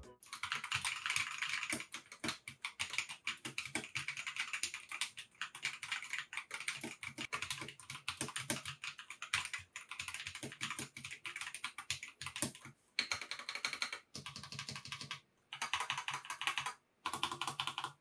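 Typing on a Tom680 (TM680) mechanical keyboard fitted with unlubricated Akko CS Lavender Purple tactile switches and PBT double-shot keycaps: a quick, steady clatter of keystrokes, with a few short pauses near the end.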